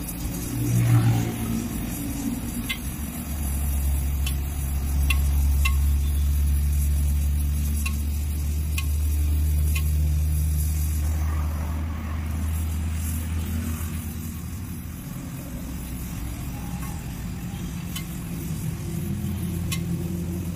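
Gas welding torch flame hissing as aluminium filler rod is melted into an alloy wheel rim. Under it is the louder low rumble of a motor vehicle engine running close by, which swells about three seconds in and eases off after about fifteen.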